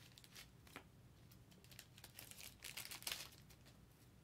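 Faint crinkling and rustling from handling, in a few short soft bursts, the loudest about three seconds in.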